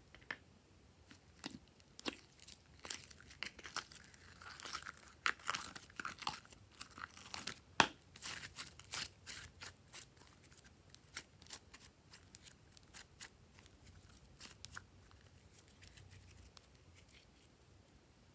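Slime being pulled out of its container and stretched between the fingers: a run of sticky clicks and crackles, densest from about four to eight seconds in, with one sharp snap near eight seconds.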